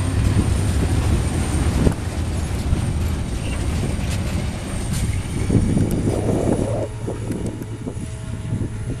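Freight wagons of a weedspray train rolling past on the rails: a steady rumble with a few sharp clicks, easing off near the end as the tail of the train draws away.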